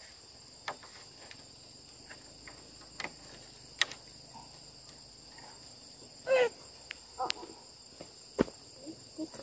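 Insects chirring steadily in two high, unbroken tones, with scattered sharp clicks and knocks from bamboo poles being tied with cord, and a short wavering squeak about six seconds in.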